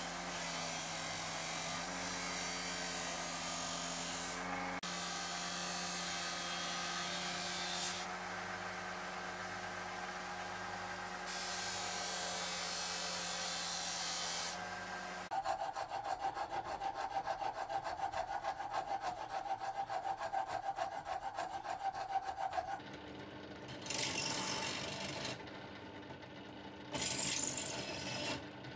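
Scheppach bench disc sander motor running while a wooden handle scale is pressed against the sanding disc, a steady hum under an even rasping, changing at several cuts. Then several seconds of fast rhythmic rasping, and near the end two short bursts of a drill press boring into the steel dagger tang.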